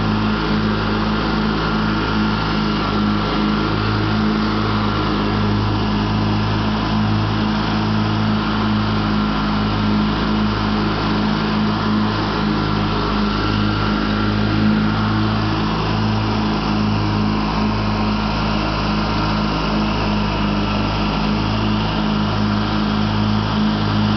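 Craftsman LT1000 lawn tractor's engine running steadily under throttle while mowing grass, a constant low hum that holds one pitch throughout.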